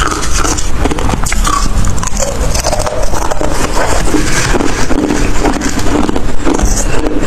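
Close-miked crunching of ice being bitten and chewed, a dense, continuous run of loud crackling crunches.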